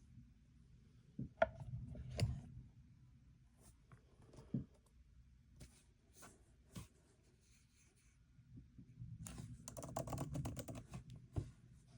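Keys of an iPad Magic Keyboard being pressed: a few scattered key clicks, then a quick run of typing near the end.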